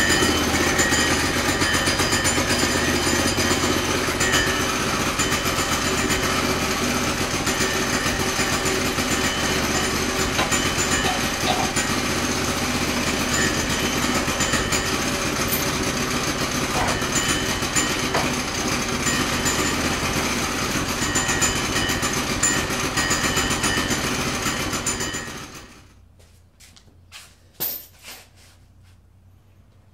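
A sawmill engine running steadily and loudly, then shut off about 25 seconds in. A few sharp knocks follow.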